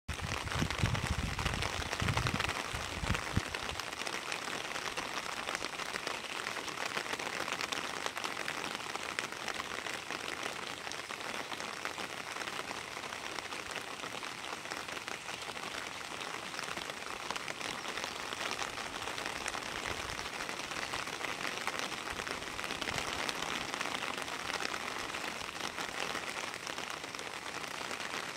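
Steady rain falling on a rose bush and garden plants, an even hiss of many small drops. A low rumble sits under it in the first few seconds.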